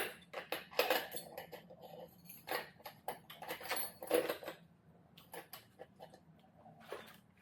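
Small loose metal track sprockets clinking and rattling against each other as they are rummaged through by hand, in irregular clusters that thin out in the second half.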